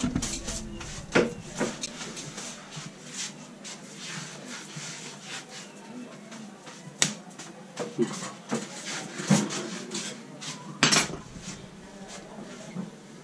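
A barber's hands slapping, tapping and clapping during a head massage: an irregular run of sharp slaps, a few of them much louder than the rest.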